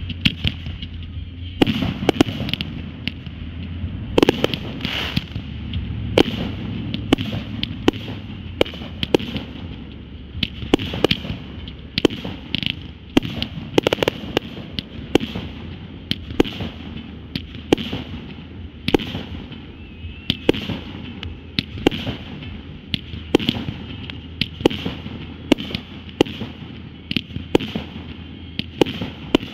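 Consumer firework cakes firing in a continuous barrage: a steady string of sharp bangs, about one to two a second, over a constant crackling hiss.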